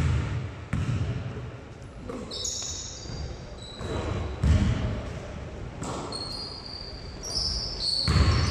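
A basketball bouncing on the court a few times at uneven intervals, with high squeaks from players' shoes in between.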